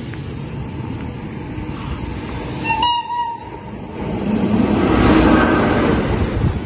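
Electric freight locomotives, an E483 and an E652 hauling a container train, sound a short horn blast about three seconds in. The train's rumble then builds as the locomotives and container wagons pass close by, loudest near the end.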